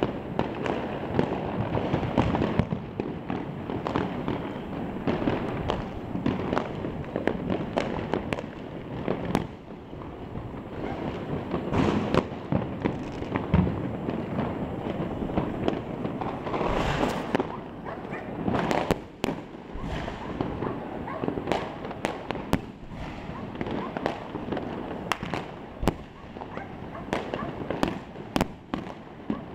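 New Year's fireworks and firecrackers going off all over the city: a continuous crackle of many bangs near and far, with sharper single cracks every second or so and louder clusters a third and again about two thirds of the way through.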